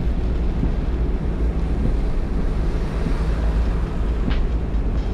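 Car driving through torrential rain: a steady wash of rain and wet-road tyre noise over a low rumble.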